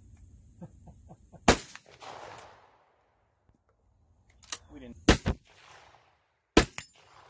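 Gunshots: a loud shot about a second and a half in, followed by a short fading tail, then a lighter shot and a loud one around five seconds, and another loud shot near the end.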